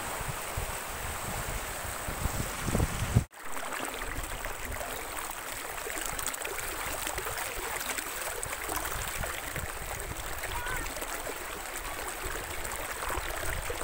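Steady rushing of muddy floodwater pouring over a road, with wind buffeting the microphone as a low rumble. The sound cuts out abruptly for a moment about three seconds in.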